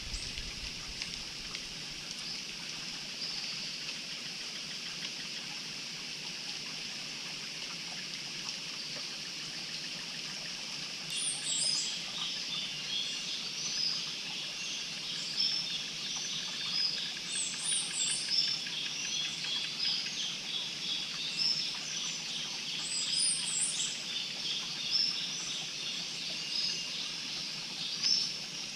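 Steady high hiss with bird-like chirping calls that begin a little before halfway through and keep repeating, a few of them higher, rising-and-falling chirps.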